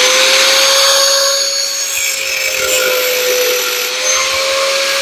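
Rotary power tool cutting through steel exhaust pipe: a steady high motor whine over a loud hissing grind, the whine dipping slightly under load partway through.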